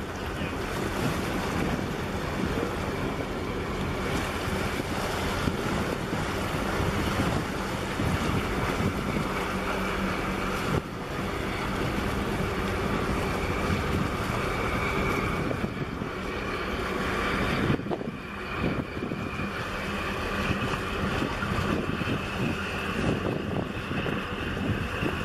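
Wind buffeting the microphone over choppy sea water washing against breakwater rocks: a steady rushing noise.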